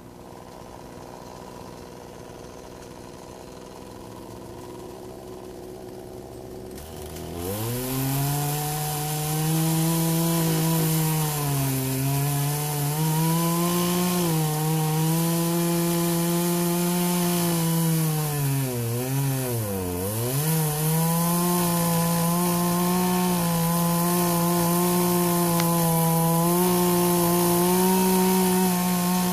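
Two-stroke Poulan 18-inch gas chainsaw idling, then opened up to full throttle about seven seconds in and cutting into a tree stump. The engine pitch dips briefly as it bogs under load, most deeply about twenty seconds in, then runs steady and high again.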